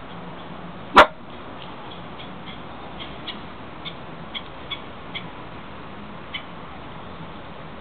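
A small terrier gives a single short, sharp bark about a second in, followed by a scattering of faint light clicks.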